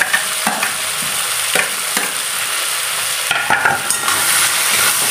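Chopped onions and tomatoes sizzling in hot butter and oil in a metal kadai, a steady hiss. A spatula stirs them, clicking and scraping against the pan now and then, most busily between about three and four seconds in.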